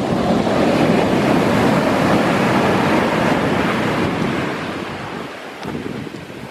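Big sea waves breaking on the shore: one surge of surf that builds in the first second, is loudest for a few seconds, then washes out and fades, with wind buffeting the microphone.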